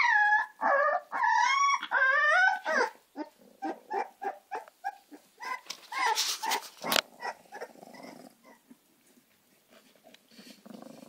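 Newborn American Staffordshire terrier puppies squealing and whimpering. A few long, high wavering cries come in the first three seconds, followed by a run of short squeaks that fade away, with a brief noisy burst about six to seven seconds in.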